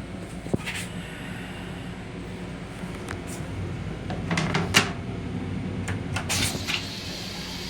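Steady low rumble of a Long Island Rail Road M7 electric railcar, heard from inside its small restroom, with scattered clicks and rattling knocks. The loudest knock comes near five seconds in, with another short burst of rattles about a second later.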